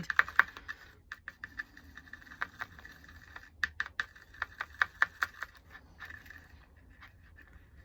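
The end of a paintbrush tapping and scraping against a palette while mixing acrylic paint: irregular light clicks in quick clusters, thinning out near the end.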